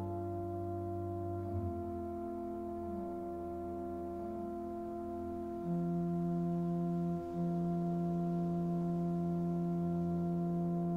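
Organ playing slow, sustained chords of soft, pure-sounding notes, the lower notes changing a few times. About halfway through, a lower note comes in and is held, growing a little louder, with one brief break.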